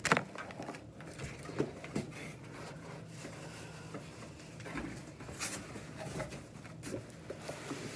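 Cardboard box and packaging being handled while unpacking: scattered rustles and light knocks as the box flaps are opened and the plastic-wrapped item inside is shifted, with a sharp knock at the very start.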